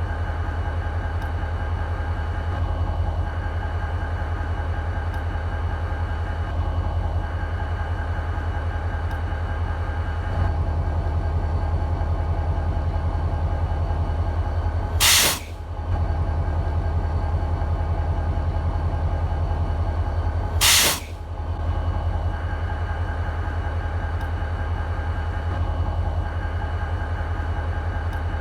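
EMD SD40-2 diesel locomotive's 16-cylinder two-stroke engine idling with a steady low rumble. Two brief, loud hisses cut in about halfway through and again some six seconds later.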